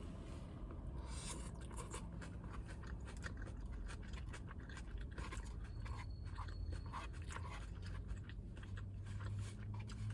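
A person chewing a mouthful of crunchy salad with lettuce, a run of irregular crisp crunches close to the microphone.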